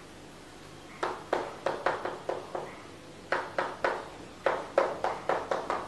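Chalk tapping and scratching on a chalkboard as handwriting is written: about twenty short, sharp strokes in two quick runs, starting about a second in, with a short pause around three seconds in.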